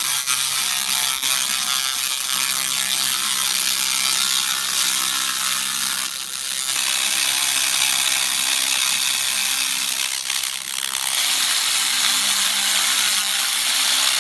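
Hand-held laser cleaner burning 40-year-old carbon crud off the metal bottom of a pressure cooker: a loud, dense, rapid crackling buzz over a steady hum. It eases briefly about six seconds in and again about ten seconds in.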